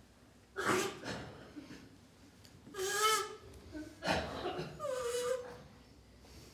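A few short, high-pitched cries and squeaks made by puppeteers voicing hand puppets, each under a second long, with pauses between.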